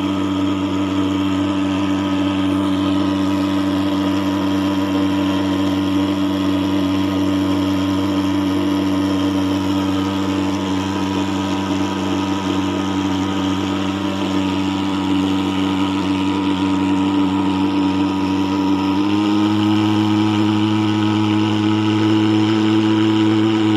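Portable thermal fogging machine's pulse-jet engine running with a steady, loud buzz while it spews insecticide fog. Its pitch steps up slightly about nineteen seconds in.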